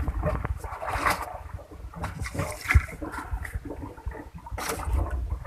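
Water splashing and sloshing in irregular surges, with a few sharp knocks and a steady low rumble underneath.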